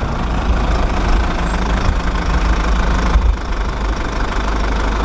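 Pressure washer running steadily, its motor humming under the hiss of the water jet as it sprays a muddy toy cement mixer truck clean.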